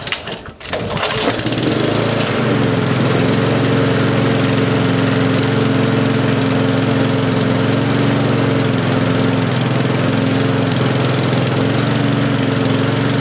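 Mountfield SV150 petrol lawnmower engine pull-started on choke with its freshly serviced carburettor: a pull or two on the recoil cord, then it catches about a second in and runs steadily.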